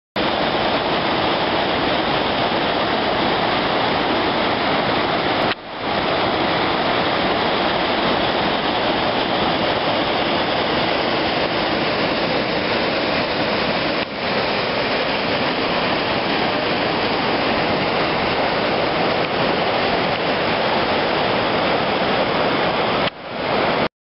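A mountain waterfall and stream of white water rushing over rock, a steady loud rush of water. It drops away briefly three times, about 6, 14 and 23 seconds in.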